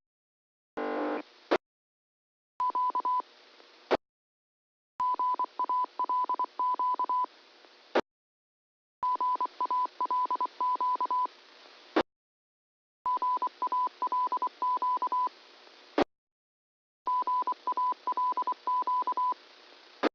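Amateur radio repeaters heard on a receiver, sending Morse code identification as a rapidly keyed single-pitch beep over a hissy channel. The transmissions come in bursts of two to three seconds, about one every four seconds. Each burst cuts off with a click as the carrier drops.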